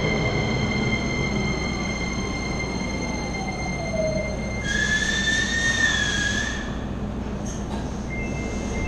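JR Kyushu 303 series electric train pulling in and braking to a stop, its motor whine falling in pitch as it slows. About five seconds in there is a brief high, wavering squeal lasting a couple of seconds as it comes to a halt.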